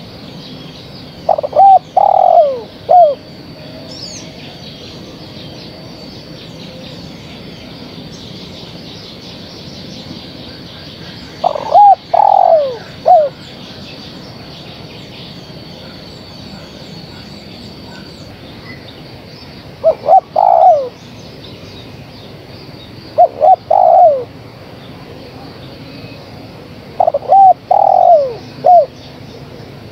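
Female spotted dove cooing, the lure call used to draw males: five short phrases of three or four notes each, several seconds apart. Faint chirping of small birds and a thin steady high tone run behind.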